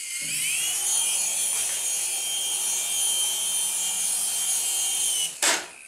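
Toy RC helicopter's small electric motors and rotors spinning up, the whine rising in pitch during the first second, then running at a steady high whine. It stops near the end with a sharp knock.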